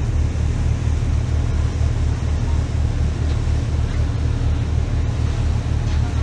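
A boat's engine running under way, a steady low throb pulsing evenly a few times a second, with a rush of wind and water over it.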